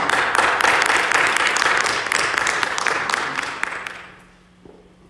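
Congregation applauding, a dense patter of hand claps that starts at once and dies away about four seconds in.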